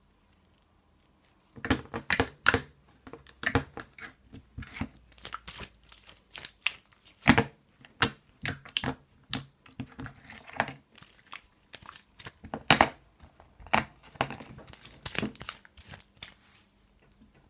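Iceberg slime being pressed and worked by hand, its hardened crust crackling and crunching in quick, irregular pops and snaps. The crackling starts about a second and a half in and dies away just before the end.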